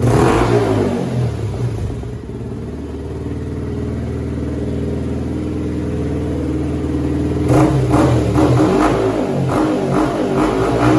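Yamaha MT15's single-cylinder engine running through an aftermarket Akrapovic exhaust with its silencer insert fitted: a rev at the start that falls back to idle, a steady idle, then a run of quick throttle blips in the last few seconds.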